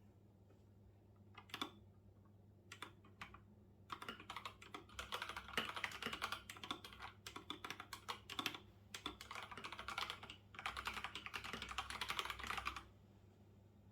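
Typing on a computer keyboard. A few scattered key clicks give way, about four seconds in, to fast, continuous typing with one short break, and the typing stops about a second before the end.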